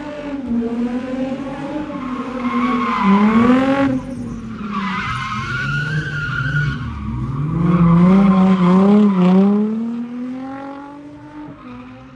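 A drift car's engine revving up and down through a slide, with tyres squealing. It is loudest about three and eight seconds in, then fades away near the end.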